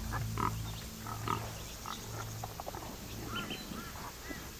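Short animal calls and grunting sounds mixed with bird chirps, over a low steady hum that fades out about two and a half seconds in.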